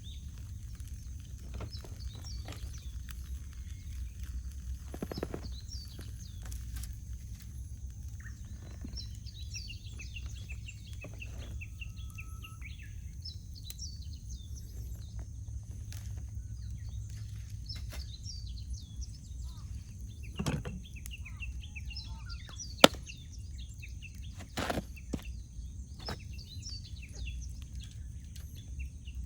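Wood campfire crackling with scattered sharp pops and one loud crack about three quarters of the way through, while small birds chirp and twitter throughout. A low steady rumble lies underneath.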